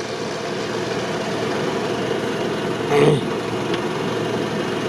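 Off-road vehicle's engine idling steadily, with a brief louder sound about three seconds in.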